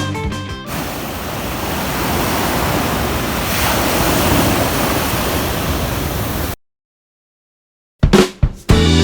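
Steady rush of sea surf and wind, swelling a little about four seconds in, after a guitar track stops. It cuts off suddenly, and music starts again near the end.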